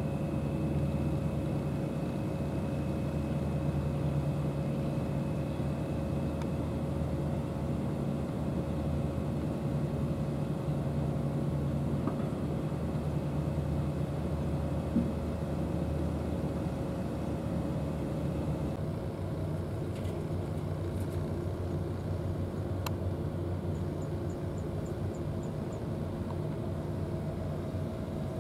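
A steady low mechanical drone with several constant tones in it, and a faint high whine that stops about two-thirds of the way through.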